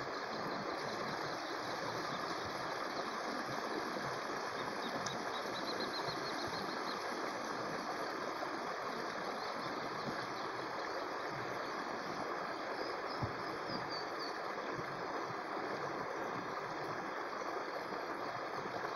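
Small waterfall pouring into a muddy brook, a steady splashing rush of water.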